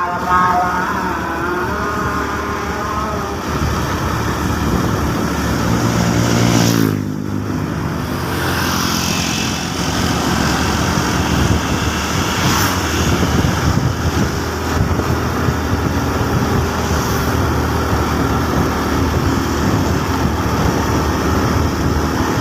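Motor vehicle travelling along a road: a steady rush of engine and road noise, with a brief low engine note and dip about seven seconds in.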